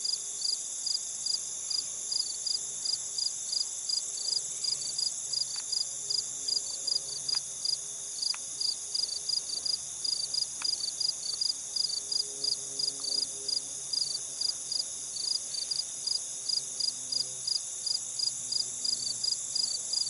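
Crickets chirping in an even rhythm of about three chirps a second, over a continuous high insect trill.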